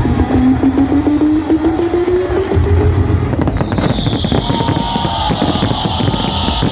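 Fireworks crackling and popping in rapid succession over loud music. About halfway through, a steady high hiss joins in.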